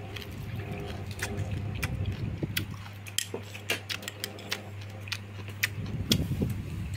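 Close-up chewing of a rice-paper roll with fresh greens: wet mouth clicks and smacks scattered through, over a steady low hum.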